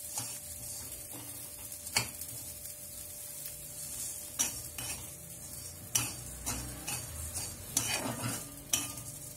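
A spatula stirs and scrapes coarse salt and tamarind around a kadai, with sizzling, as they are sautéed in a little leftover oil to drive off their moisture. The spatula knocks sharply against the pan about two seconds in and several more times in the second half.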